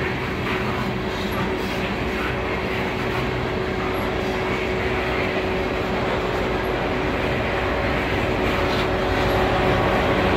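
Loaded coal gondola cars of a freight unit train rolling past: a steady rumble of steel wheels on rail that grows slightly louder toward the end.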